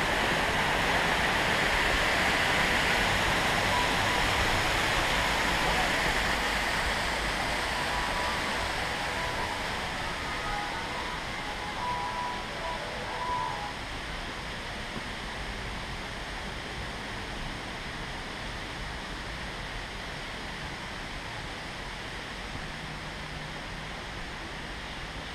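Waterfall rushing steadily, growing fainter over the first half as the distance from it grows, then settling to a softer steady rush.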